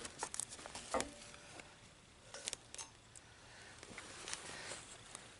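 Faint rustling and a few soft clicks from the shot-through phone-book target being handled up close.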